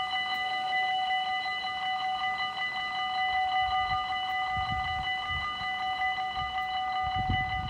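Dutch railroad-crossing warning bell ringing in a rapid, even, continuous pulse, the signal that a train is approaching. A few low rumbles sit underneath.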